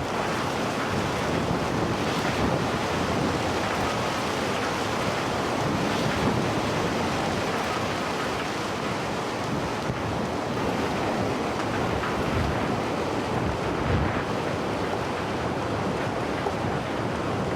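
Rushing floodwater: a steady, even roar with no pitch or rhythm.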